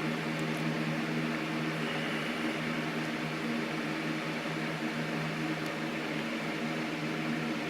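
Steady mechanical hum with a hiss over it, a running fan motor.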